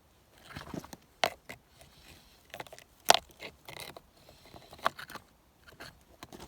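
Irregular knocks, clicks and scrapes, the sharpest about a second in, around three seconds in, and again near five seconds.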